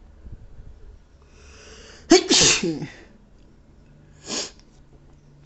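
A person sneezing during an allergy sneezing fit: a rising sharp intake of breath, then one loud voiced sneeze about two seconds in. A short, sharp breath through the nose follows about four seconds in.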